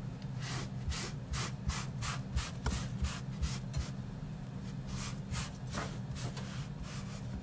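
Knife strokes cutting vegetables (potatoes or carrots) on a cutting board: a run of short, sharp strokes about three a second, with a brief pause midway. A steady low hum runs underneath.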